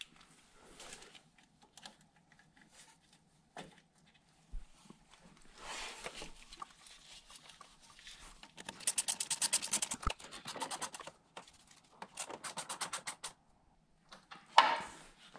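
Hand tools at work on a HMMWV's lower radiator hose fittings: scattered scrapes and rattles, then two runs of rapid, even clicking past the middle. A sharp knock near the end is the loudest sound.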